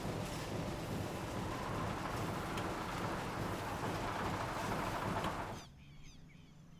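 Steady rushing noise with a low hum that cuts off suddenly about five and a half seconds in, giving way to faint bird chirps over a quieter low hum.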